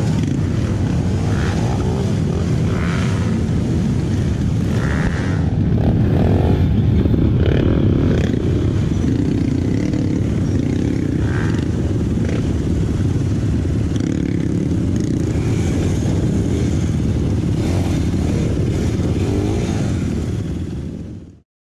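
Trail motorcycle engine running steadily, fading out near the end.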